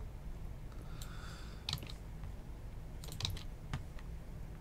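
A few scattered clicks from a computer keyboard and mouse: one about a second and a half in, a quick cluster a little after three seconds and one more just after. A faint low hum runs underneath.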